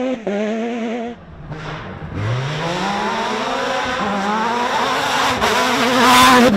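Off-road rally car engine at high revs on a dirt stage. After a brief drop about a second in, it rises in pitch as the car accelerates. It then holds a steady note and grows louder as the car approaches and passes close, loudest just before the end.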